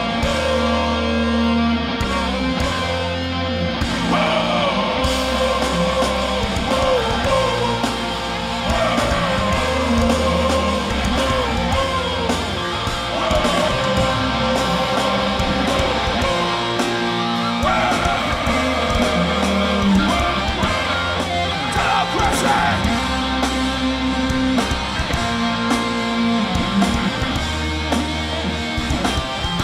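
Hardcore band playing live, loud and steady: distorted electric guitars over bass and drums.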